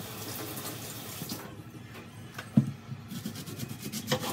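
Kitchen faucet running into a stainless steel sink as hands are rinsed under it, shut off after about a second and a half. Then a single sharp knock, the loudest sound, and a few quick clicks near the end as a knife cuts an onion on a wooden cutting board.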